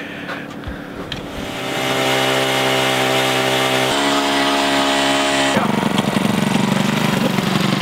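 Powered ice auger running and boring down through lake ice, its motor holding a steady pitch that shifts about halfway through and then turns rougher as the blades chew through the ice.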